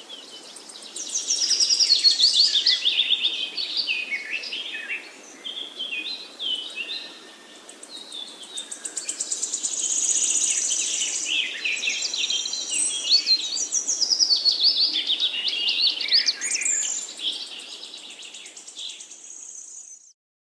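Birdsong: rapid runs of high chirps and trills over a faint steady background hiss. The sound cuts off suddenly near the end.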